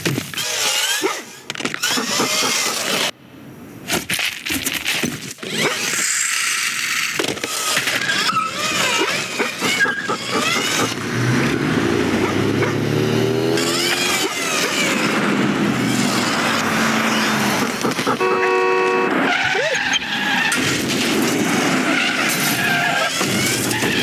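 Film sound-effects mix of a traffic chase: car engines, tire squeals and skidding brakes, with a car horn sounding about three quarters of the way through.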